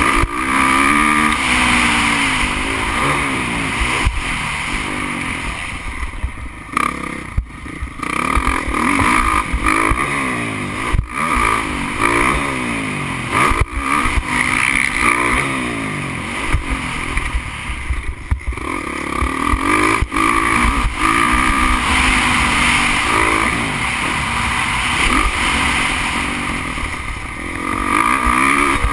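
Motocross bike engine heard from an onboard camera at race pace. It revs up and drops again over and over as the rider works the throttle through the track, with several brief cut-offs where the throttle is chopped.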